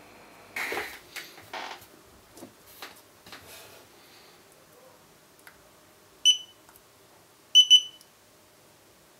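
Xiaomi Yi action camera beeping: one short beep, then about a second later two quick beeps. Before that, clicks and rustles as the small plastic camera is picked up and handled.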